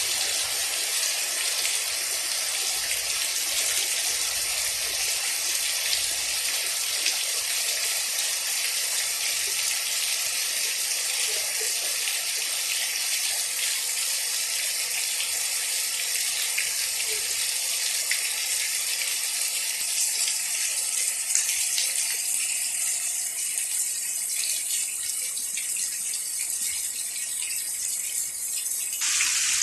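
Heavy rain falling steadily: a dense, even hiss with scattered drop ticks, changing abruptly in tone near the end.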